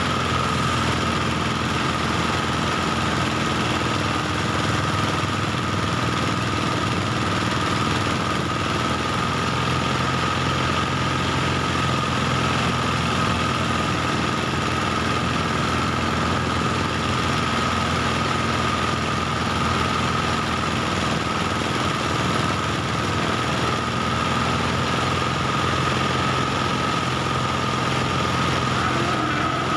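Engine-driven rice thresher running steadily while sheaves of rice are fed into its drum: a small engine's even running with a steady high-pitched whine over it.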